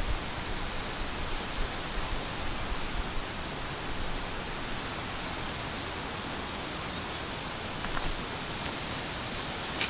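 Steady, even hiss of wind, with a couple of faint short clicks about eight seconds in.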